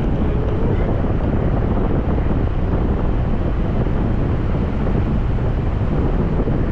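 Steady rush of wind over the microphone of a camera on a hang glider in flight, a loud, even roar heaviest in the low end.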